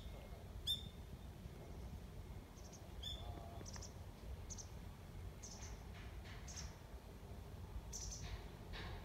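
Small birds chirping: a string of short, high chirps about one a second, the loudest near the start, over a steady low rumble.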